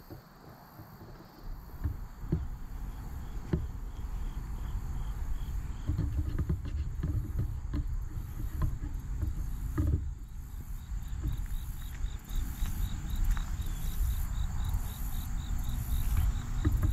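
Insects chirping in an evenly repeating high pulse, which starts about six seconds in and comes faster after about twelve seconds, over a low, uneven rumble.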